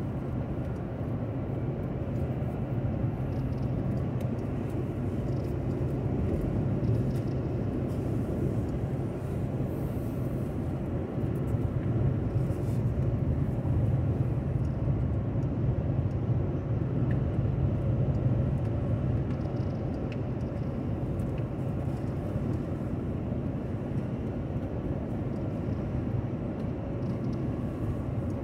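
Steady road and engine rumble of a car travelling on a highway, swelling slightly at times.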